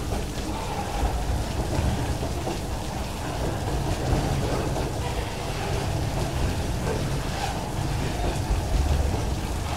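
Loaded freight wagons carrying eucalyptus logs rolling past on the rails, making a steady deep rumble, under heavy rain hissing on the platform and wagons.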